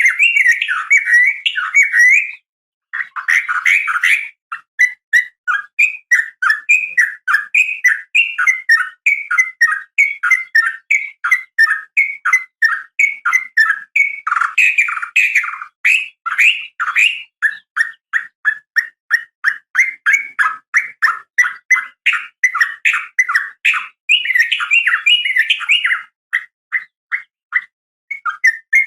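Yellow-vented bulbul (trucukan) singing a long, unbroken run of rapid, bubbly chattering notes, several a second, with one brief pause about two and a half seconds in.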